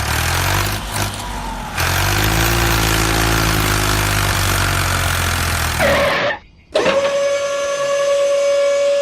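A motor vehicle engine running and revving for about six seconds, then cut off abruptly. After a brief gap, a steady high whistle-like tone takes over.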